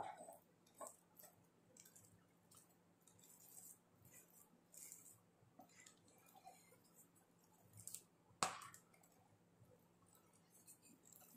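Near silence with faint kitchen handling: scattered soft clicks and taps, with one sharper click about three-quarters of the way through.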